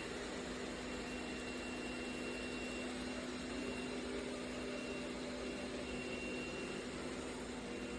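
Eureka E20 Plus robot vacuum running while cleaning: a steady motor whir with a low hum and a faint high whine.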